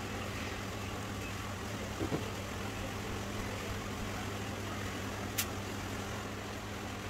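A steady low machine hum, with a couple of faint taps about two seconds in and one sharp click about five and a half seconds in.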